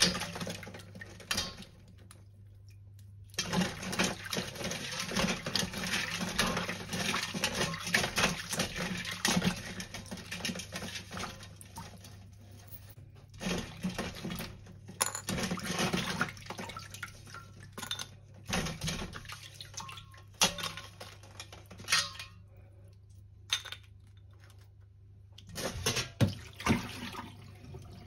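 Water splashing and trickling with scattered clinks of dishes, as at a kitchen sink during washing. It stops briefly twice.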